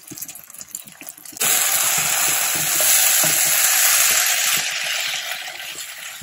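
Onions and tomatoes with freshly added spice powders sizzling in oil in a nonstick kadai as they are stirred with a wooden spatula. The sizzle starts suddenly about a second and a half in and slowly fades.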